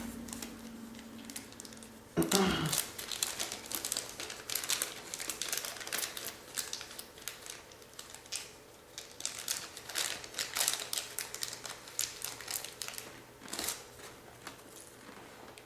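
Irregular crinkling and rustling with scattered light clicks, from hands handling the heater's air-pump parts.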